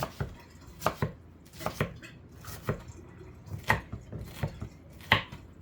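Kitchen knife chopping an onion: about ten sharp knocks of the blade through the onion onto the board, at an uneven pace of roughly two a second.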